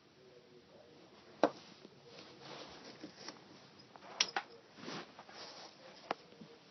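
A cat batting a cough drop around: a few sharp clicks and taps, the loudest about a second and a half in, two close together around four seconds and one near six, with soft scuffing and sliding between.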